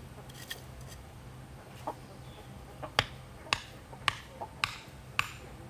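A run of sharp knocks, evenly spaced about half a second apart, starting about three seconds in over a low steady hum.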